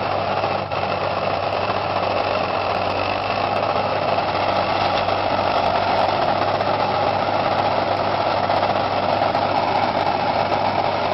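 A ploughing machine's engine running steadily at an even pitch.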